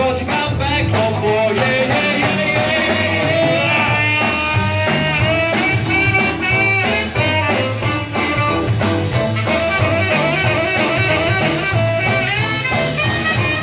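Live band playing an upbeat jazz and soul number: tenor saxophone and a singer over electric guitar, keyboard, double bass and drums, with a steady beat.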